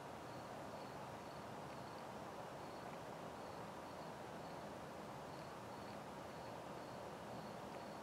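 Crickets chirping faintly, a short high chirp about twice a second, over a steady outdoor hiss.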